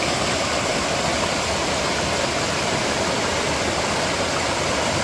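Steady rush of a mountain valley stream, an even hiss of running water.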